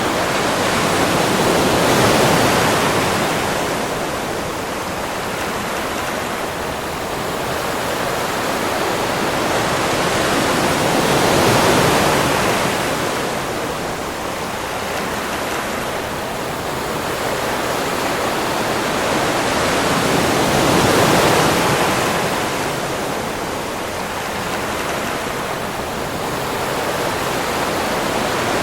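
Ocean waves on a beach: a steady rush of surf that swells and fades slowly, peaking about every nine seconds, three times.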